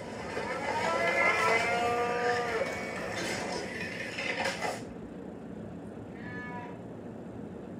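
Cow moo from a tipped moo-can noisemaker: one long moo that rises and then falls in pitch. A few sharp clicks follow, then a short, fainter moo about six seconds in.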